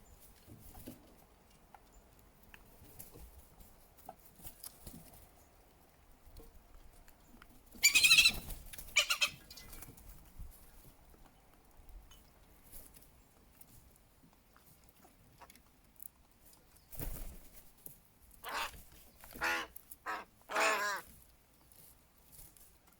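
Crows cawing: two loud caws about eight and nine seconds in, then a run of about five caws in quick succession later on.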